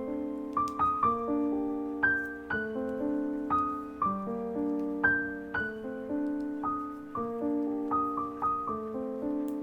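Background music: solo piano playing a slow, gentle melody of single notes over held lower notes.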